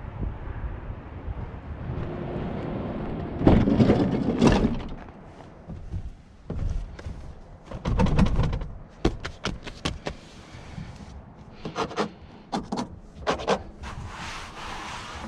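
Hands handling a 2001 Citroën Berlingo's interior trim: knocks, clicks and rubbing on the plastic panels, the fabric headrest, the roof lining and the seat. There are louder thumps at about four and eight seconds, and a brushing sound near the end as a hand runs over the headliner.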